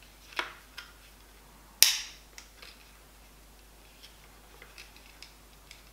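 Handling of a DJI Osmo Mobile 4 smartphone gimbal and its phone clamp: scattered small plastic ticks and one sharp snap a little under two seconds in.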